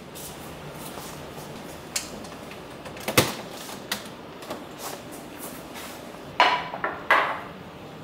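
Food tubs and plastic containers being taken out of a refrigerator and set down, a few scattered knocks and then a louder clatter of several knocks near the end.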